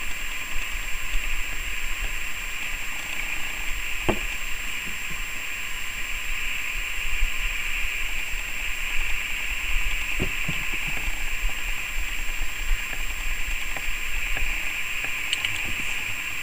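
Steady outdoor background hiss with a low rumble, and two soft thumps about four and ten seconds in.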